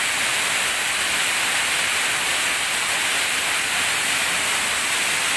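Waterfall cascading down a rock face: a loud, steady rush of falling water.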